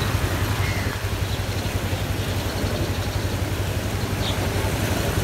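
Swollen monsoon floodwater rushing in a river: a steady, continuous roar with a deep rumble underneath.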